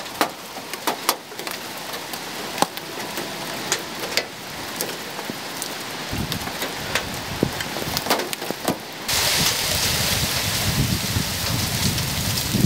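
Heavy thunderstorm rain with hailstones striking hard surfaces as many sharp, scattered clicks and knocks. About nine seconds in it switches abruptly to a denser, louder downpour with a low rumble underneath.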